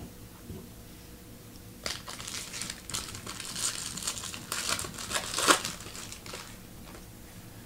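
Foil wrapper of a Bowman Chrome baseball card pack crinkling as it is torn open by hand, starting about two seconds in and running for several seconds, with its sharpest crackle just before the end.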